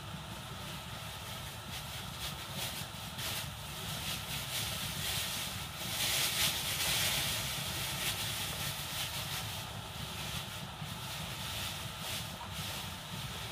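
A large aluminium pot of soup simmering on the stove: a steady hiss with a low rumble underneath and faint irregular ticks. It swells for a second or two about six seconds in.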